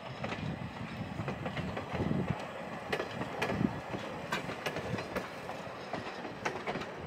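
Old passenger coaches and a caboose rolling slowly past on the rails, the wheels giving uneven low thumps and scattered sharp clicks over the track.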